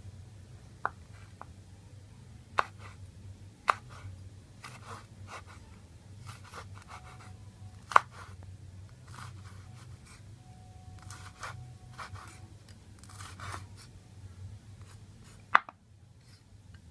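Steel cleaver slicing red chilies on a wooden cutting board: scattered sharp knocks of the blade striking the board, the loudest about eight seconds in, with softer cutting and scraping clicks between. A low steady hum underneath.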